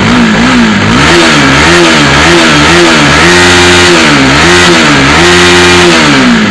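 Bajaj Pulsar NS200's single-cylinder engine revved with a run of throttle blips, its pitch rising and falling, with two longer holds at higher revs in the middle and near the end. It runs smoothly with no tappet ticking after valve guides and valves were replaced.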